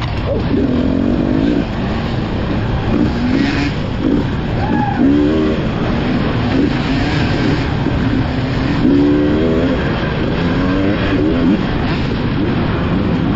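Off-road dirt bike engine, heard close from the riding bike, revving up and down again and again as the throttle is opened and closed.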